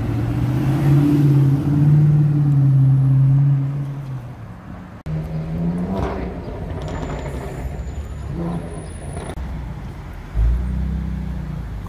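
Sports car engines on a city street: a Dodge Challenger's deep engine rumble for about the first four seconds, then a rising rev after a cut. About ten seconds in there is a sudden loud burst of engine sound as a Porsche 911 moves off.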